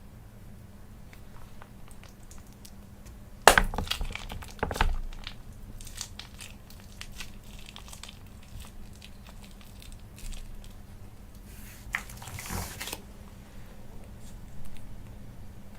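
Handling sounds: a sharp knock about three and a half seconds in, then crinkling and scattered clicks, and a short hiss near twelve seconds.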